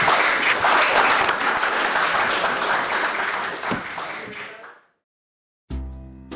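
Audience applauding, fading out about four to five seconds in. After a moment of silence, music starts near the end.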